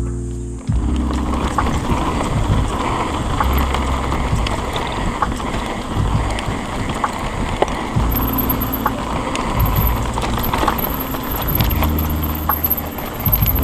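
Mountain bike riding over a rough dirt trail: steady tyre and wind noise with many small clicks and rattles from the bike over the bumps.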